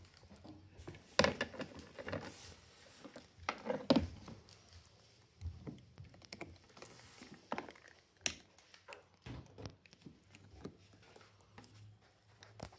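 A small dog gnawing on a plastic toothbrush, the brush clicking and scraping against its teeth in irregular bursts, the loudest about one and four seconds in.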